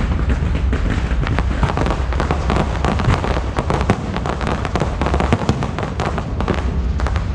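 Aerial fireworks display: shells bursting in a dense, continuous run of rapid bangs and crackles over a steady low rumble.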